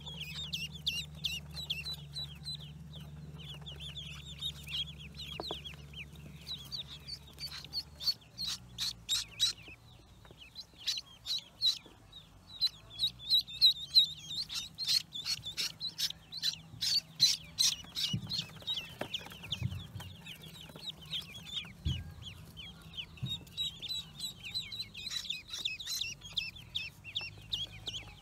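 A brood of newly hatched ducklings peeping, many short high peeps each falling in pitch, with louder bouts of rapid peeping in the middle and near the end.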